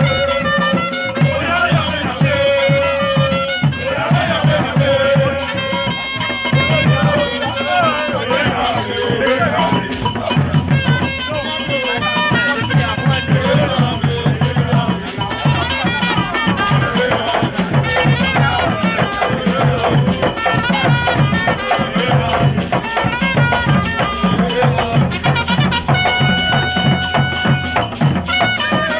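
Ghanaian borborbor dance music: a steady, quick drum beat with rattles, held notes and voices singing over it.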